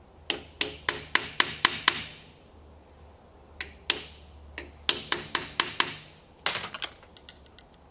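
Hammer blows on metal, peening over a rivet in a 1955–57 Thunderbird window channel backed by a bar in a bench vise. Three runs of sharp, briefly ringing strikes, about four a second, with short pauses between and a quicker flurry near the end.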